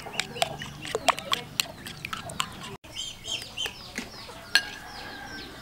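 Chickens clucking, with short falling calls throughout, mixed with sharp clicks of a metal spoon against a ceramic bowl as batter is stirred.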